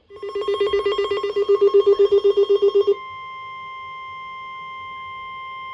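NOAA Weather Radio alert: a rapid, buzzy electronic pulsing at about eight pulses a second for some three seconds, then the steady 1050 Hz warning alarm tone. Together they announce a new severe thunderstorm warning.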